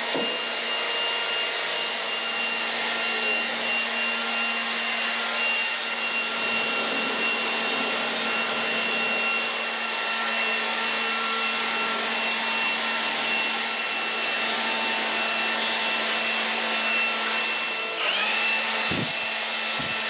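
Handheld leaf blower running steadily with a high whine, blowing dust out of a barn aisle. Its whine shifts briefly near the end.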